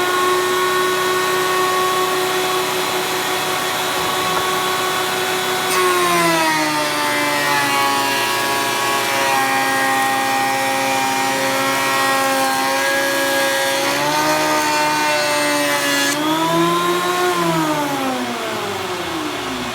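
Porter-Cable 6-inch benchtop jointer running with a high motor whine and cutter noise. The pitch sags while a cherry board is fed over the cutterhead and recovers between passes. Near the end the whine falls steadily as the motor is switched off and spins down.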